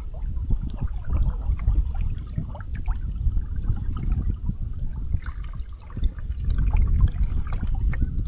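Water gurgling and splashing against the hull of a sea kayak under sail, in many small irregular slaps, over a steady low rumble of wind on the microphone.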